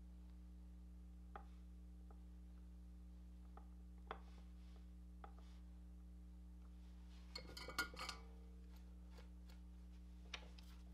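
Faint bench-handling sounds from wires being set in a metal helping-hands clamp: a few small clicks, then a short flurry of metal clicks and rattles about seven to eight seconds in, over a steady low hum.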